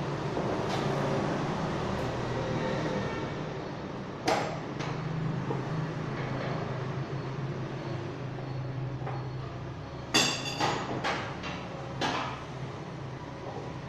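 Granite-cutting machine running with a steady low hum, with sharp metallic knocks about four seconds in and a cluster of knocks around ten to twelve seconds in.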